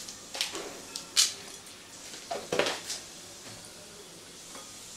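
A few short, light clinks and taps of kitchen utensils, the loudest about a second in, over the faint sizzle of hot oil in a steel kadai tempered with whole cumin seeds and a bay leaf.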